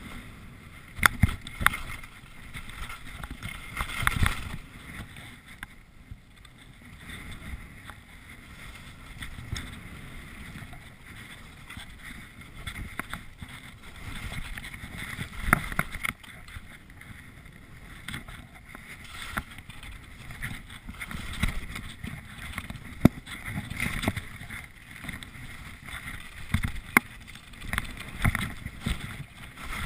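Skis swishing and scraping through snow on a fast downhill run, with wind rushing over the microphone and irregular sharp knocks.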